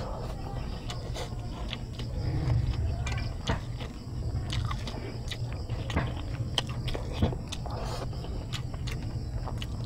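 Close-up chewing and mouth sounds of a person eating squid adobo and rice by hand: many short scattered smacks and clicks over a steady low rumble.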